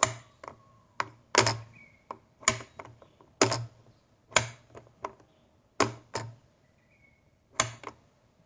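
A wall light switch flicked on and off repeatedly: a dozen or more sharp clicks at uneven spacing, many in quick pairs.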